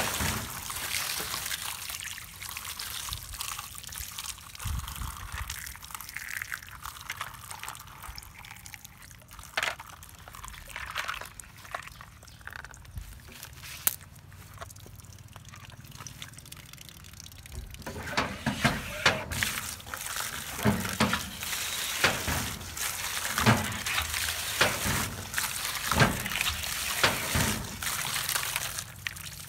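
A stream of water pouring onto a plastic mesh basket of toy trucks, splashing over the toys and spattering onto the grass. In the middle it eases to a lighter trickle with a few plastic clicks, and from a little past halfway the pouring and splashing come back louder, with many sharp splashes.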